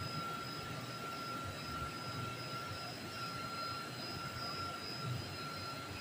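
Steady machine drone with a constant high-pitched whine over it, unchanging throughout.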